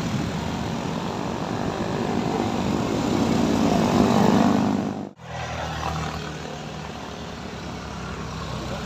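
Vehicle engine labouring up a steep climb, growing louder over the first four seconds or so. The sound cuts off abruptly about five seconds in, and a quieter engine drone follows.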